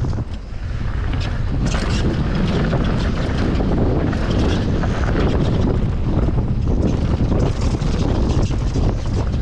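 Mountain bike riding down a rough downhill trail: wind rushing over the GoPro's microphone, with the tyres rumbling over dirt and frequent rattling clicks and knocks from the bike.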